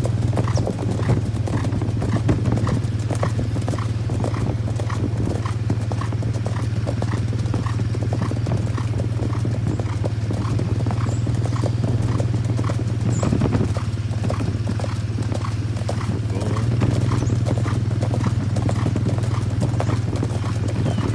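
Hooves of several horses cantering on a paved road, a quick, even clip-clop rhythm, over a steady low hum.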